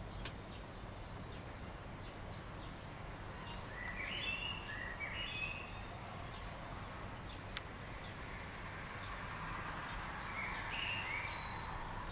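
Open-field ambience: a steady low background rumble with a songbird singing short phrases of stepped high notes, about four seconds in and again near the end.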